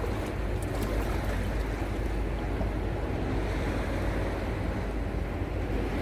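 Sea surf washing onto the beach: a steady, continuous wash with a strong low rumble and no single crash standing out.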